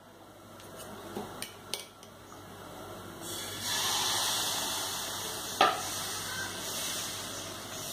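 Fermented rice batter for vellayappam sizzling as it is ladled onto a hot dosa pan and spread out, the hiss starting about three seconds in and swelling a moment later. A couple of light ladle clicks come before it and a sharp ladle tap on the pan midway through.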